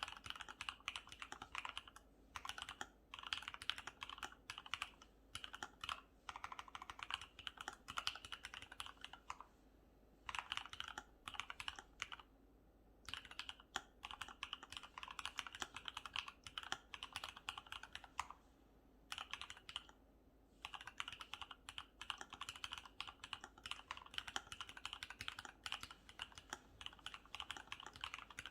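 Typing on a custom mechanical keyboard with lubed Cherry MX Black (Hyperglide) linear switches and PBT cherry-profile keycaps: fast runs of keystrokes broken by several short pauses.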